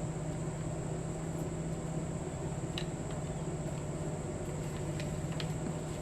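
A steady low mechanical hum with a slight throb, under a constant high thin tone, with a few faint clicks.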